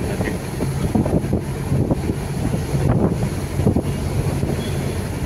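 A vehicle driving along a road: steady engine hum and rumbling road noise, with wind buffeting the microphone.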